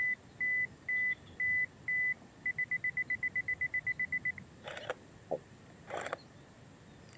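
Nikon D3100 DSLR self-timer beeping, about two short beeps a second, then quickening to a rapid run of beeps for about two seconds. The shutter then fires with a click, and another click follows about a second later.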